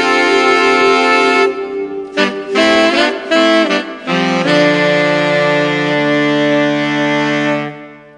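Background music: long held notes, a few short notes in the middle, ending on a held chord that dies away near the end.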